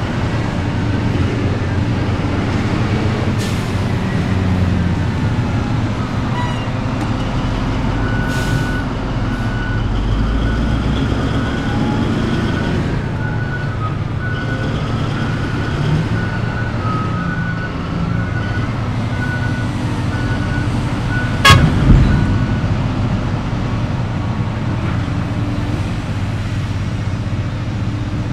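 Hitachi EX1900-6 mining excavator's diesel engine running steadily under load. An evenly repeating beeper sounds through the middle stretch. About three-quarters of the way through come a sharp clank and a heavy bang.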